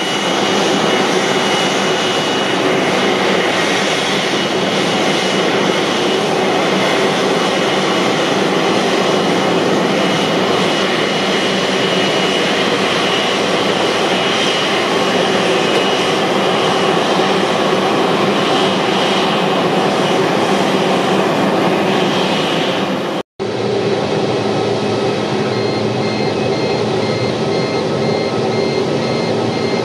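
Airbus A330-200 jet engines running at idle: a steady roar with a thin high whine over it, broken once by a momentary gap about three quarters of the way through.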